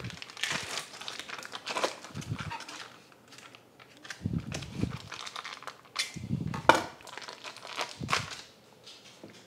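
Foil wrapper of a cream cheese block crinkling and tearing as the block is cut through with a metal bench scraper on a wooden cutting board and the foil is peeled off, with several dull knocks.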